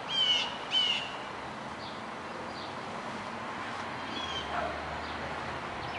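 A small bird chirping in short phrases of quick, falling notes, twice in the first second and again about four seconds in, over a faint steady outdoor background hiss.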